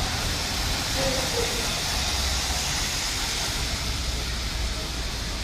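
Metro train running through the station: a steady low rumble with a hiss of wheels on rail.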